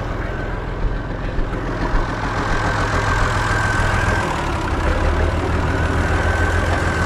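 Massey Ferguson 95X tractor's diesel engine running steadily while its newly fitted hydraulic remote valve is worked. A high steady whine swells about two and a half seconds in and again near the end, and there are a few light clicks in the first two seconds.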